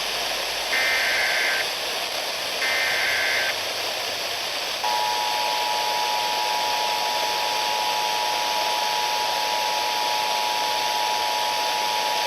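Emergency Alert System tones on FM radio: the last two of the three SAME header data bursts, each just under a second long, then the EAS two-tone attention signal, a steady paired tone that starts about five seconds in and holds on. This signals the start of an emergency alert, here a flash flood warning. Everything sits over steady radio hiss.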